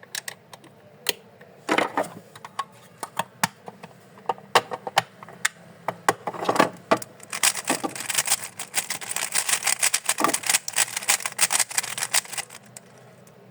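GAN 14 Maglev Pro speedcube being turned by hand: scattered sharp clicks, then a fast run of clicking turns from about halfway in until near the end.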